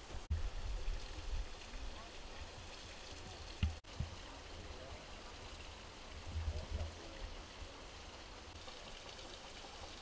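Outdoor ambience: a steady rushing hiss with wind rumbling on the microphone and faint distant voices. The sound cuts out for an instant twice, near the start and about four seconds in.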